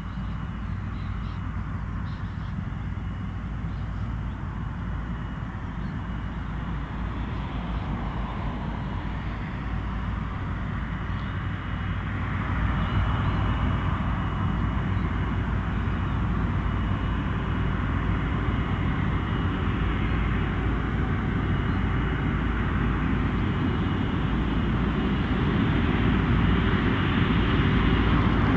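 Jet engines of an Airbus A330-243, Rolls-Royce Trent 700 turbofans, running at the airfield, with a thin steady high whine over the engine noise. The noise grows louder about twelve seconds in and again near the end.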